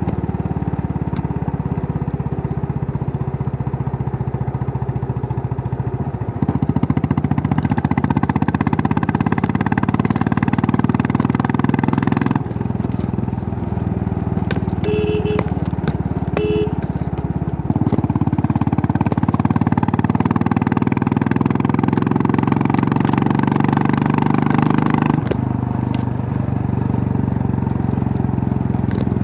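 Royal Enfield Classic 350's single-cylinder engine running while the bike is ridden, growing louder twice as the throttle is opened and easing back off in between. A horn beeps twice in short succession about halfway through.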